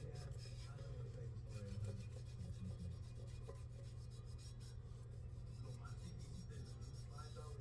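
Magic eraser (melamine foam sponge) scrubbing burnt-on residue off a pot with fast, steady rubbing strokes.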